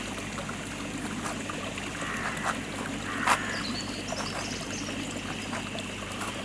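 Steady trickle of running pond water, with a few short clicks and faint bird chirps about four to five seconds in.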